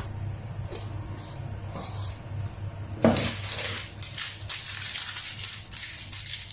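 A few light clicks as MSG is shaken from a small jar over a cooking pot, a knock about three seconds in, then crinkling and rustling of a plastic seasoning sachet being handled and torn open.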